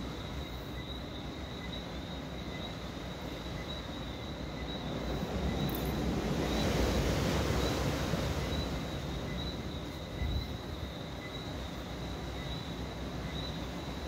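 A vehicle passing, its noise swelling over a few seconds and fading away, over a steady high-pitched pulsing night chorus of calling insects and frogs and a low background rumble.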